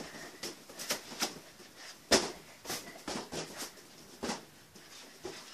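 Air-filled party balloons being kicked and bumping along a hallway floor among children's running footsteps: a string of irregular short thumps and knocks, the sharpest a little after two seconds in.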